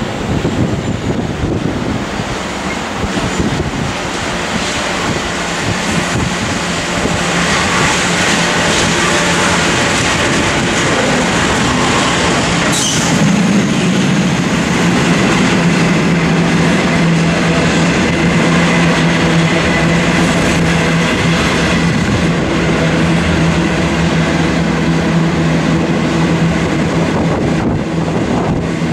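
Diesel-hauled coal train passing close by: the locomotives come through, then a long rake of coal hopper wagons rolls past with a steady rumble and clatter of wheels on the rails.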